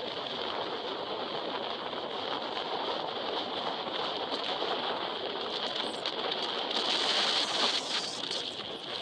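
Storm waves breaking and washing up a shingle beach in strong wind: a continuous rushing that swells louder about seven seconds in.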